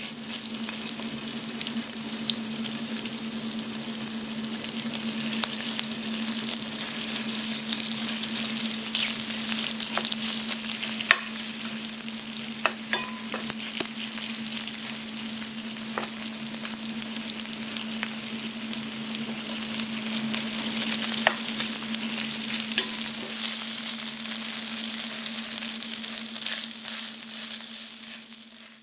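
Jeon (Korean pancake) frying in hot oil in a pan: a steady sizzle with scattered crackles and pops over a steady low hum. It fades out near the end.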